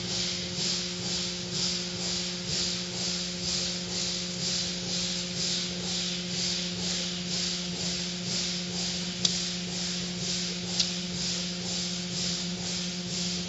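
Automatic car wash at work: hanging cloth strips swishing over a car in an even rhythm, with the hiss of water and foam spray over a steady machine hum. Two sharp clicks come about two-thirds of the way through.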